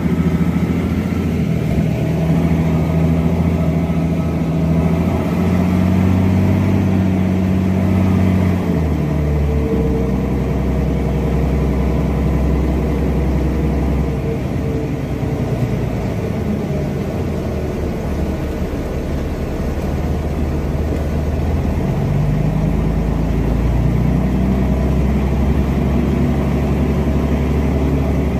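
Mercedes-Benz O305 city bus with its OM707 diesel engine, heard from inside the cabin while under way. The engine note rises, drops sharply about nine seconds in, runs lower and steady, then climbs again near the end as the bus accelerates.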